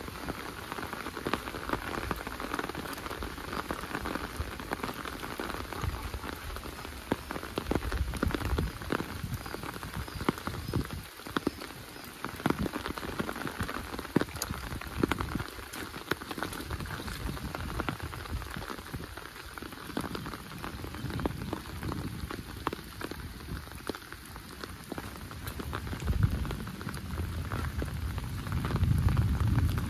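Steady rain falling, with many sharp drop impacts close by, and a low rumble swelling near the end.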